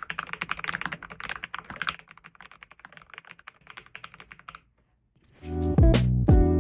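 Typing on a mechanical keyboard: rapid keystrokes, quieter after about two seconds and stopping after about four and a half. Guitar music comes in near the end.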